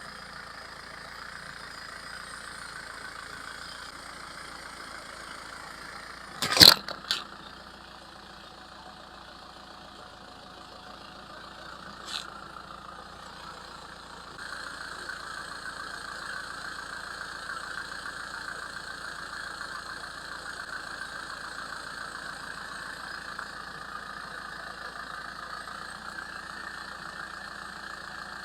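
A machine running steadily while something is crushed: a loud, sharp crunch about six and a half seconds in, a smaller one half a second later, and a faint click a few seconds after that.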